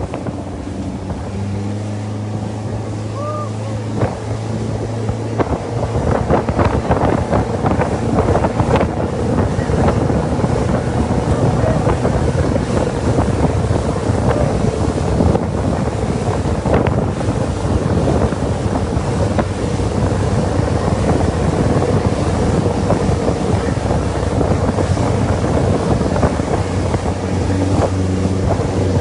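Motorboat engine running steadily, with wind buffeting the microphone and water rushing past; the wind and water noise picks up about six seconds in.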